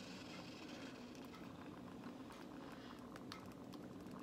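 Quiet room tone with a few faint, short clicks from a metal spoon scooping soup out of the pan for a taste.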